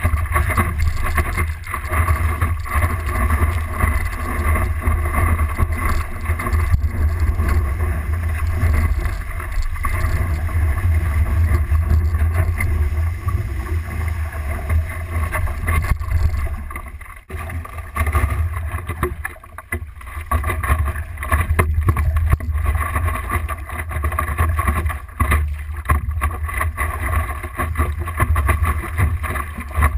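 Muffled wind buffeting and water rushing against a stand-up paddleboard as it glides, heard through a board-mounted action camera's sealed housing, with a heavy low rumble and the splash of paddle strokes. The sound dips briefly a little past halfway.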